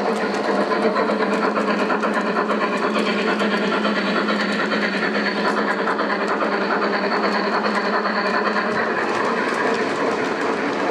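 Gauge 1 model steam locomotive and goods wagons running on the layout's track: a steady motor and gear hum with the wheels clicking over the rails.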